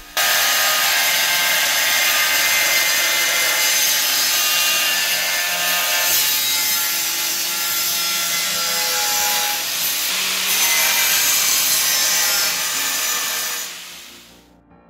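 Angle grinder with a diamond disc cutting a ceramic wall tile along a marked line: a steady, gritty cutting noise over the motor's whine. It stops near the end.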